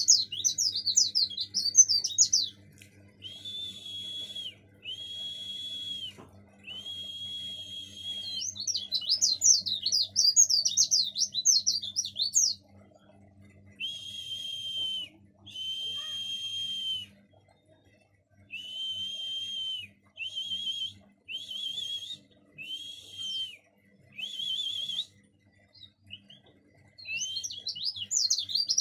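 Caged pleci dakun white-eye chattering ('ngomel'): three stretches of fast, high, tumbling twitter. Between them comes a series of drawn-out whistled notes, each about a second long, with short gaps.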